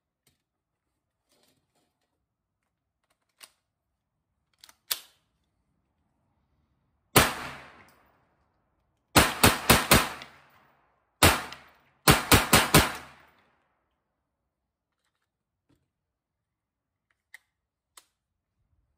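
Kel-Tec Sub 2000 9mm pistol-caliber carbine firing about eleven shots with an echoing tail: a single shot, a quick string of four, another single, then a quick string of five. Before the shooting there are a few light metal clicks of the carbine being handled, and two more clicks near the end as it is folded.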